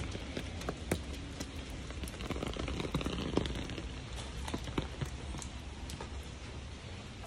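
Steady rain falling, with many short, sharp taps of drops scattered through it.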